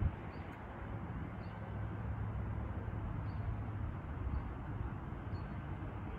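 Steady outdoor background noise with a low rumble, and a faint high chirp repeating about once a second.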